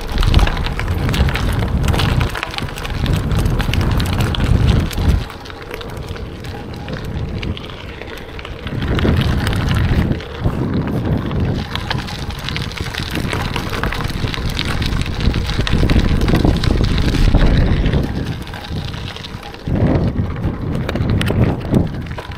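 Wind buffeting the built-in microphone of a DJI Osmo Action 4 action camera on a moving bicycle, a low rumble that swells and drops in gusts, over a steady crackle of bicycle tyres rolling on gravel.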